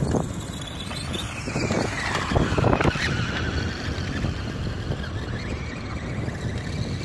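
Electric motor of a SKYRC SR5 1/4-scale RC dirt bike running on a 3S 11.1-volt battery, whining as the bike drives over dirt. About a second in, the whine glides down in pitch as the bike slows, then holds steady. A low wind rumble on the microphone runs underneath.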